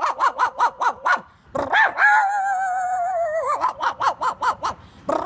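A person imitating a small dog with the voice: a quick run of yapping barks, a long wavering whine, then more rapid yaps.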